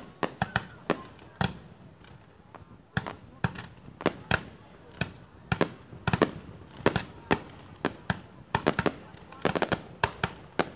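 Aerial fireworks launched from the ground, firing an irregular string of sharp bangs, about two or three a second. There is a short lull about two seconds in and a rapid cluster of shots near the end.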